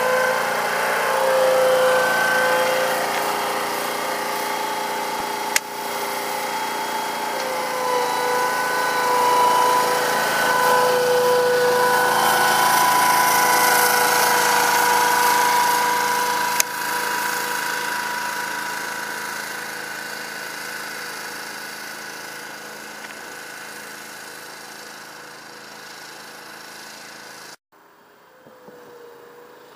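Compact ride-on tractor engine running steadily while towing a turf brush across an artificial pitch, loud at first and fading over the second half as it moves away. Two sharp clicks come at about a third and half way through, and the sound drops off suddenly near the end.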